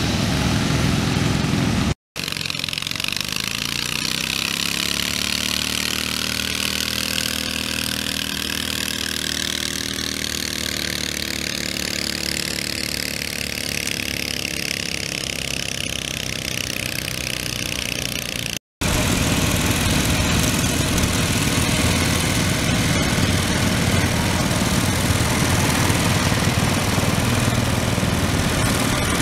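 Small garden-tractor engine running hard during a tractor pull, in three cut-together stretches. In the middle stretch the engine's pitch sags, then holds steady as it keeps pulling.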